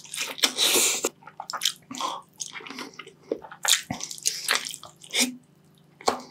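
Close-miked wet eating sounds: a man biting and chewing sauce-soaked braised beef short ribs, with a quick run of irregular sticky smacks and mouth noises and a faint steady hum underneath.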